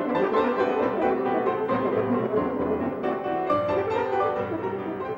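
Instrumental music with piano playing a run of changing notes and chords, growing softer near the end.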